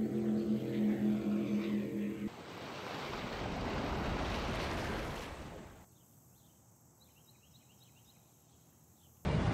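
A steady engine hum that cuts off abruptly about two seconds in. A rush of water and spray follows, swelling and fading over about three seconds as the speeding boat wipes out. Then near silence with a few faint high chirps.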